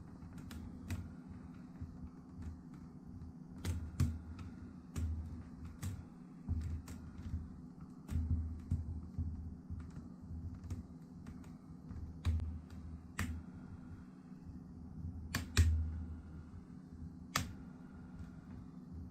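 Plastic laptop display bezel being pressed onto the lid and its clips snapping into place: irregular sharp clicks and snaps with dull knocks from handling, the loudest snaps coming near the end, over a steady low hum.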